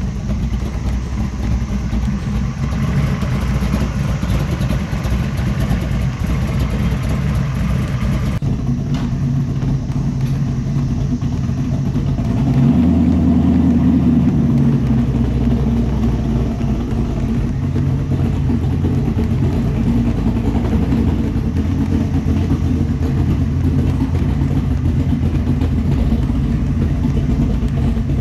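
The 540 cubic inch big-block Chevy V8 in a 1969 Chevrolet C10 running with a steady low rumble, getting louder about twelve seconds in.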